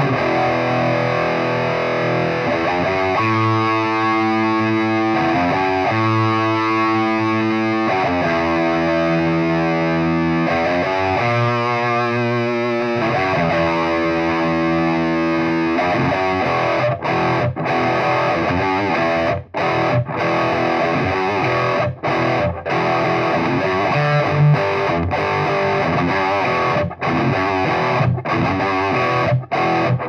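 Distorted electric guitar played through a Marshall 4x12 cabinet loaded with Eminence Wizard and Texas Heat speakers. Sustained chords change every couple of seconds, then a choppier riff with short stops follows in the second half.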